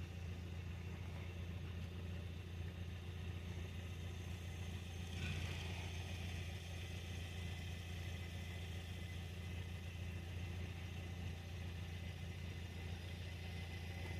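Two coupled Konstal 805Na tram cars running along the track at a distance: a steady low rumble, with a brief louder stretch of higher-pitched rolling noise about five seconds in.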